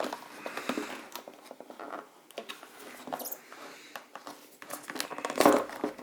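Hands prying open a tight tablet box: irregular rustling, crinkling and small clicks of the packaging, with a louder scraping rustle about five and a half seconds in.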